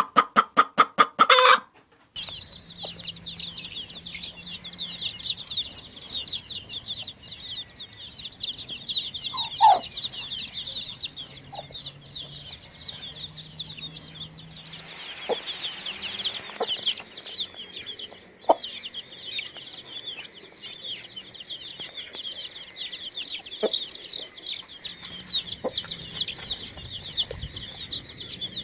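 A short burst of loud, rapid hen clucking, then many chicks cheeping together in a continuous high-pitched chorus, with an occasional lower call.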